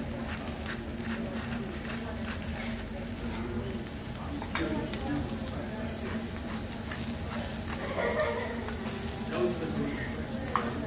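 Food frying on a hot steel teppanyaki griddle: a steady sizzle with faint scattered crackles.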